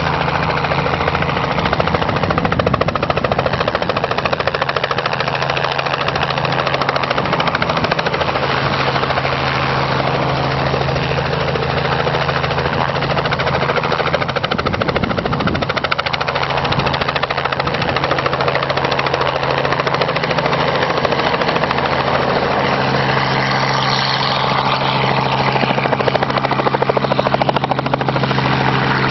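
Helicopter flying, its engine and rotor giving a steady low hum under an even rushing noise, with little change in level.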